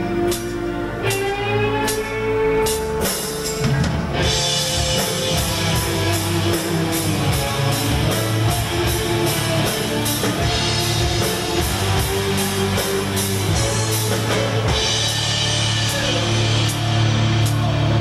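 Instrumental introduction of a rock song: guitar over a drum kit, with the full beat and cymbals coming in about four seconds in.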